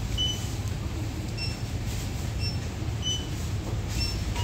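Steady low hum of a convenience store's background machinery, with a faint short high beep about once a second.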